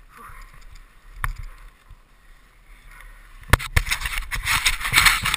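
Rustling and rubbing noise close to a chest-worn camera's microphone. It starts with one sharp click about a second in. From about three and a half seconds it turns into loud crackling with sharp knocks.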